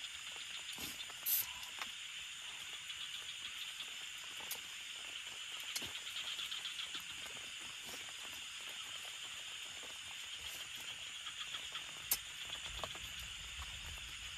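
Steady high-pitched chorus of night insects, a continuous hissing buzz with a fast, fine pulse, broken by a few sharp clicks.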